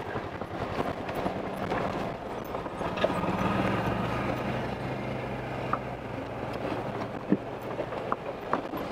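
Off-road vehicle's engine pulling steadily at low speed on a rough dirt road, its low hum growing a little stronger from about two seconds in and easing near the end, with a few scattered clicks and knocks from the track.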